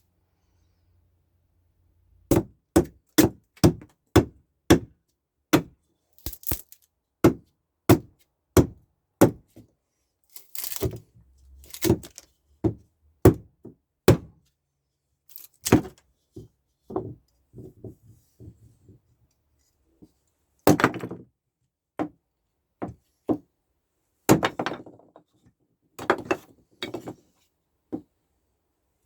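Billhook chopping into wood, a run of sharp blows at about two a second that grows slower and irregular about ten seconds in, some with a longer splintering crack.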